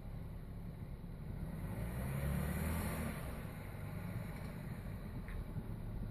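Jeep Wrangler JKU engine running at low speed as it crawls over trail rocks, swelling briefly about two seconds in.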